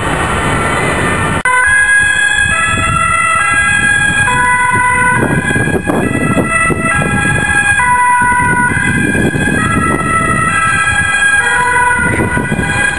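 Emergency vehicle's two-tone siren, switching back and forth between a high and a low note, cutting in suddenly about a second and a half in. Road traffic and engine rumble run underneath it.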